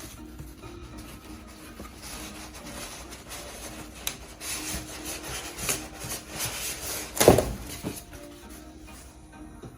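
Packaging being handled and scraped during an unboxing, with a loud thump about seven seconds in, over background music.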